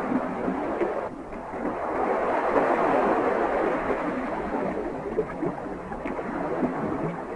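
Steady rushing water noise, dipping briefly about a second in and swelling louder around two to three seconds in.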